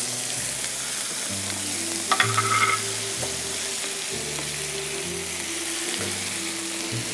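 Chickpeas, eggplant and sauce sizzling in a hot frying pan while a wooden spatula stirs them: a steady frying hiss, with a brief clatter about two seconds in.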